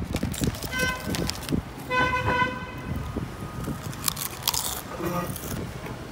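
A vehicle horn beeps twice, a short beep about a second in and a longer one about two seconds in. Around four seconds in comes crisp crunching as a potato chip is bitten.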